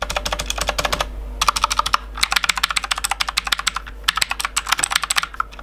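Aukey mechanical keyboard with blue switches being typed on rapidly, many keystrokes a second, with a brief pause a little over a second in. The clicks are sharp and crisp.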